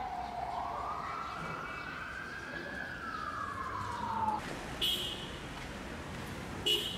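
An emergency vehicle's siren wails once, rising over about three seconds and falling away about four seconds in, over steady street traffic noise. Two short high beeps follow, about five seconds in and just before the end.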